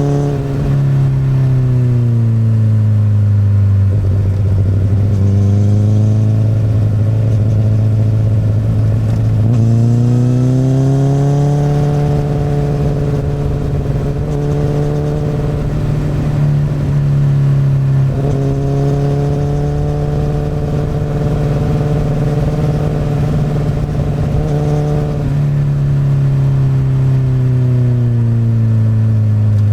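Honda CBR1000RR's inline-four engine running through an Akrapovic exhaust while riding. The revs fall at first and stay low for several seconds, climb smoothly about ten seconds in, hold steady for a long stretch, then fall again near the end.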